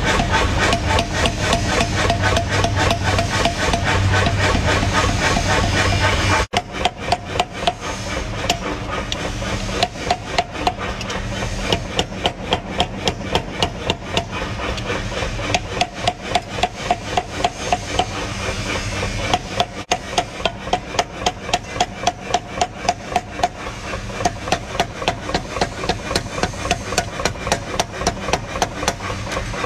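Power hammer striking red-hot steel in rapid, regular blows, about three a second, over a steady machine hum, as the blank is forged into a spearhead.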